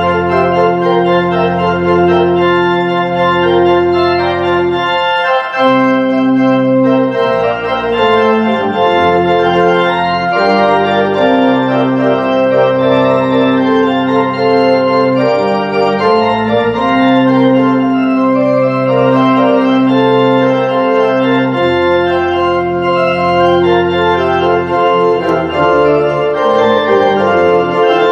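Organ playing slow, sustained chords that change every few seconds, as closing music after the benediction.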